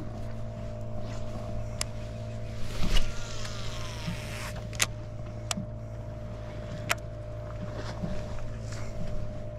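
A cast with a Team Seahawk Barricade SW Plus baitcasting reel about three seconds in: a swish, then the spool paying out line with a whine that falls in pitch as it slows. Several sharp clicks follow, over a steady low hum.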